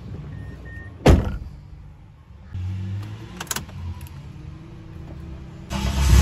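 A car door shuts with a thud about a second in, followed by a few light clicks. Near the end the Mazda RX-8's rotary engine is started and runs loudly.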